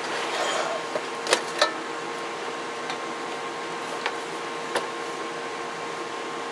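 A few short, sharp clicks and knocks as an opened CB radio's metal chassis is handled and lifted off the workbench, the loudest two about a second and a half in. A steady hum with a faint even tone runs underneath.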